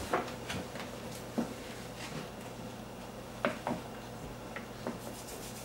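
Light clicks and taps of a metal measuring spoon against a baking powder container and the mixing bowls as teaspoons of baking powder are scooped out. About seven scattered clicks over a faint low hum.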